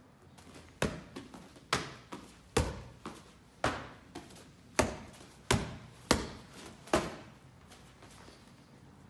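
Gloved kickboxing strikes landing on focus mitts: eight sharp smacks about a second apart, with fainter taps between them, ending about seven seconds in.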